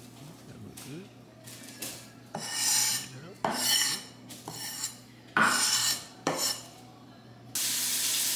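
Cleaver blade scraping across a bamboo cutting board, gathering chopped dill, in four rasping strokes after a few light taps. Near the end a steady hiss starts.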